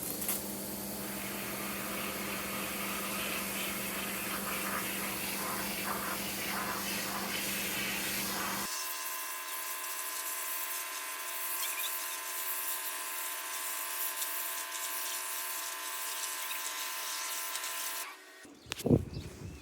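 Pressure washer running and spraying water on plastic blinds: a steady motor whine over a hiss of spray, which changes in tone about nine seconds in and stops near the end.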